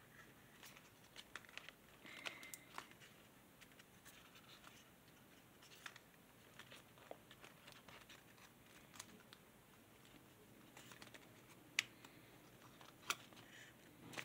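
Faint crinkling and clicking of origami paper being creased, pressed and reverse-folded between the fingers, with a few sharper crackles near the end.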